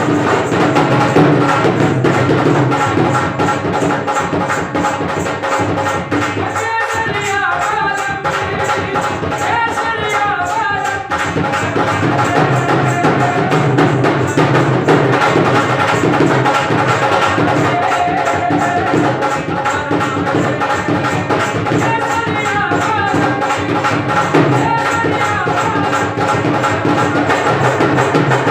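Dance music with fast, steady percussion. A wavering melody line comes in twice, about seven seconds in and again about twenty-two seconds in.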